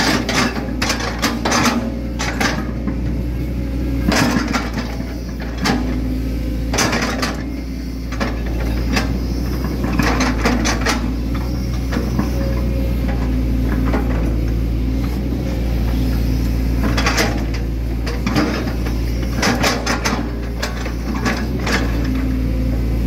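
Hitachi Zaxis 110 excavator's diesel engine running steadily while the hydraulic arm works the bucket, with irregular clicks and knocks coming in clusters as the bucket presses and smooths wet mud.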